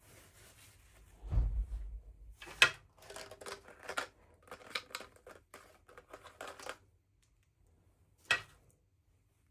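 Small handling noises: crinkly rustling and a run of clicks and taps for several seconds, with a dull thump early on and one sharp click near the end, as of craft or packaging materials being handled.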